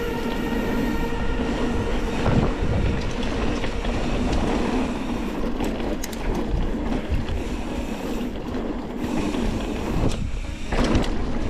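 Mountain bike rattling and clattering over rough trail at speed, with scattered sharp clicks and knocks, and wind rushing over the camera microphone. A steady whine of several tones fades out about a second in.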